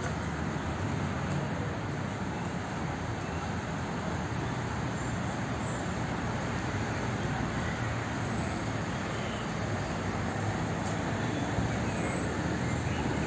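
Steady, even hum of city street traffic.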